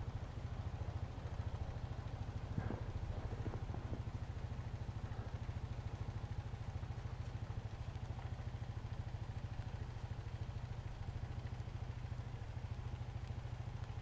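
An engine idling steadily: a low, even hum with a fast regular pulse.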